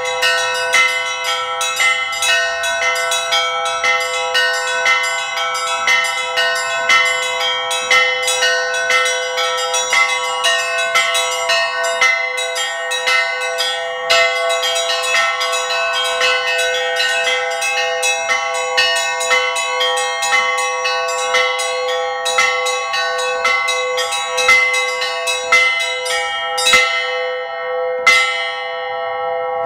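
Several small church bells rung Orthodox-style, their clappers pulled by cords while the bells hang still, in a fast, dense peal of overlapping strikes over a steady ringing hum. Near the end the quick strikes stop, two last strokes sound, and the bells ring on.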